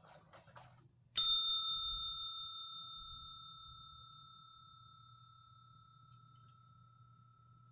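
A single bell strike about a second in, ringing with a clear tone that fades away over several seconds.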